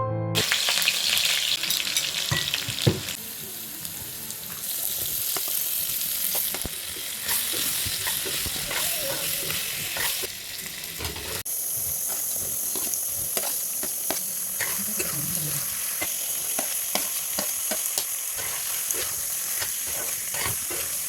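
Potatoes, cauliflower and peas frying in hot oil in a pan, sizzling steadily. Frequent clicks and scrapes come from a utensil stirring the vegetables.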